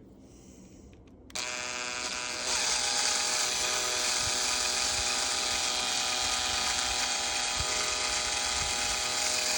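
Electric drill starting up about a second in and running at a steady whine, spinning a tarnished aluminium knob against a fiber pad with silver polish; it gets louder a second or so after starting.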